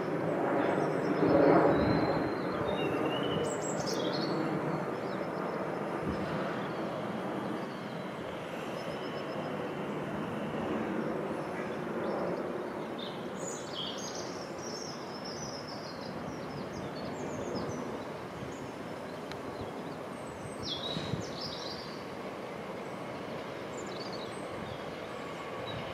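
Southeastern Class 465 Networker electric train rolling through the junction: a steady rumble of wheels on track, loudest a second or two in, with small birds chirping over it.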